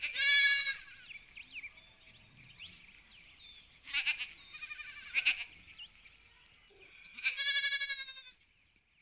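Goat bleating: a long quavering bleat at the start, a broken run of bleats about four to five seconds in, and another long quavering bleat near the end.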